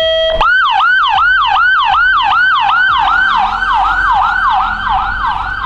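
Electronic siren of a Ford Transit ambulance: a brief steady tone at the start, then a yelp of quick repeating sweeps, each rising sharply and falling back, about two and a half a second.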